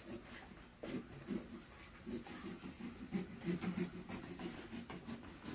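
A kitchen knife sawing into a pumpkin's shell: a fast run of short rasping, scraping strokes, some with a dull low thud, as the pumpkin is cut open for carving.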